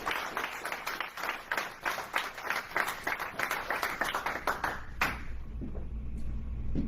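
Audience applauding with dense clapping that stops about five seconds in.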